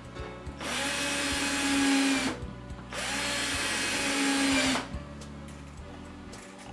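Cordless drill driving two screws into wood through pilot holes, one after the other, each run lasting just under two seconds, with a short pause between them.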